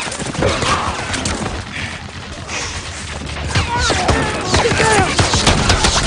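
Movie battle sound mix: scattered gunshots and crashing impacts with men shouting. It builds louder over the second half.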